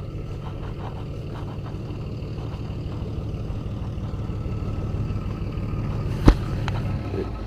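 Tow vehicle's engine running steadily as it backs a trailer-mounted sawmill into place, getting a little louder in the second half. There is one sharp clunk about six seconds in.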